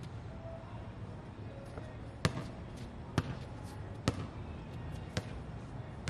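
A basketball dribbled on an outdoor hard court, bouncing four times about a second apart.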